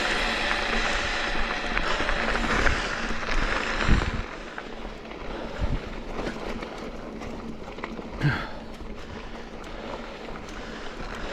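Mountain bike being ridden on a dirt trail: wind buffeting the microphone over tyre and frame rattle, with a few short knocks from the bike over bumps.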